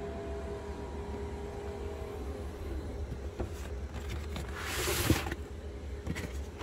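Steady low hum with a faint steady tone. About five seconds in, a brief rustling scrape as a hand brushes the cardboard shipping box.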